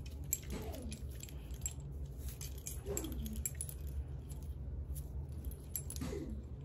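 Metal key rings and attachments on a bundle of self-defense keychains clinking lightly as they are handled, in scattered small clicks and jingles.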